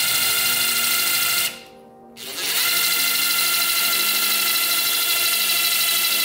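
Cordless drill with a 1/8-inch bit drilling into a 4L80E transmission valve body, the motor running with a steady whine. It stops for under a second about a second and a half in, then starts again.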